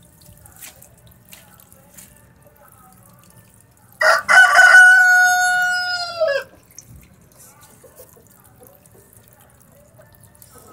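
Domestic rooster crowing once, a single cock-a-doodle-doo starting about four seconds in and lasting about two and a half seconds, its last note falling away.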